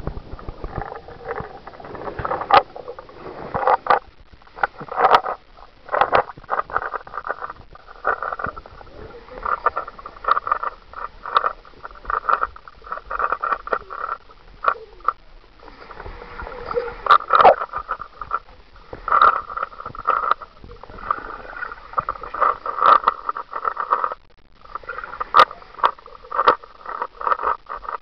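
Swimming-pool water sloshing and lapping, with irregular splashes and knocks coming and going throughout.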